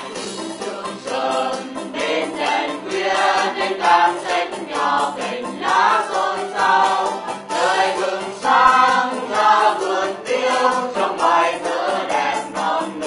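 Background music: a song sung by a choir.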